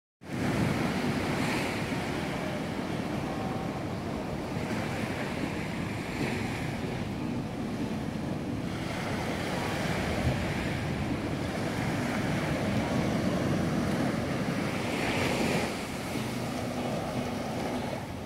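Surf washing up on a sandy beach, swelling and easing every few seconds, with wind on the microphone.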